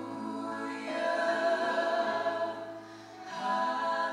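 A man and three young women singing together in harmony on long held notes, with a low note beneath; the sound dips briefly about three seconds in, then the singing resumes.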